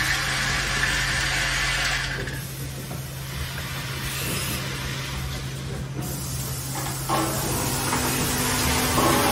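Vibratory bowl feeders of a plastic tap assembly machine running, with a steady low hum and plastic parts rattling in the bowls and along the tracks. About seven seconds in, the sound turns louder into the running noise of the automatic assembly stations, with a steady tone added.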